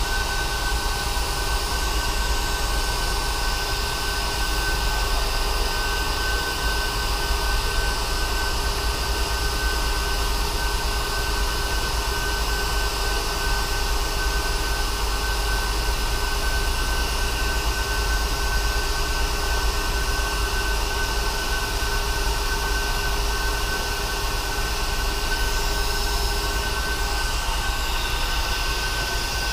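Pneumatic vacuum brake bleeder running on compressed air: a steady hiss with a high whistle, drawing old brake fluid out through the opened bleeder valve on a motorcycle's front brake caliper.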